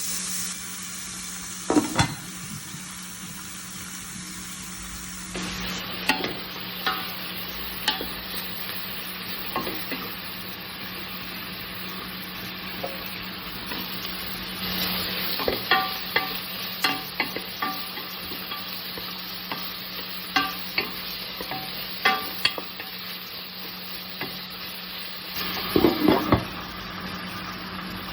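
Food sizzling as it fries in a pan, stirred with a utensil that scrapes and knocks against the pan in irregular strokes, with a louder clatter of knocks near the end. A steady low hum runs underneath.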